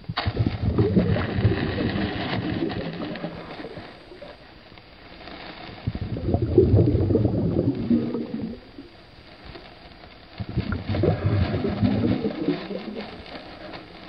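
Muffled underwater gurgling and sloshing of water, coming in three surges a few seconds long with quieter gaps between.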